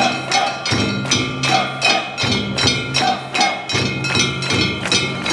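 Kunchi festival music: sharp percussion strikes at an even beat of about three a second, over ringing metallic tones and a low sustained sound.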